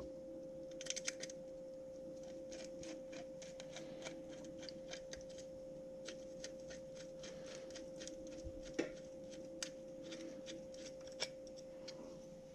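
A hand tool turning small screws in a metal GoPro cage mount, giving an irregular run of light metallic clicks and ticks, with a sharper click about two thirds of the way through. A faint steady hum runs underneath.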